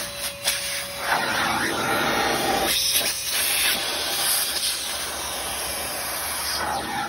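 A small 1.5-gallon wet/dry shop vac runs with a steady motor whine under a rushing hiss of air through its crevice tool. The hiss swells about a second in as the nozzle works into the cracks.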